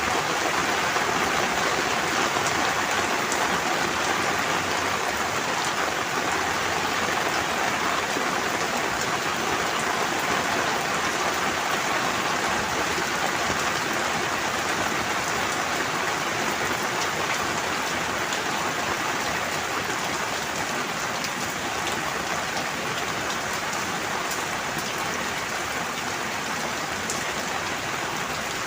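Steady rain falling, an even dense patter of drops that eases off slightly toward the end.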